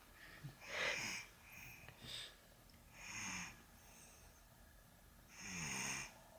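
Little snores from someone asleep: a noisy snoring breath about every two and a half seconds, with a smaller one between the first two, and a low buzzing rattle in the last.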